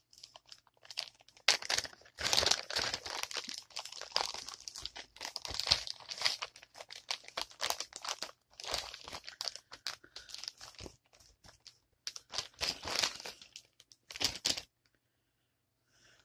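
Plastic bag crinkling and rustling in irregular bursts as a doll is unwrapped from it; the rustling stops near the end.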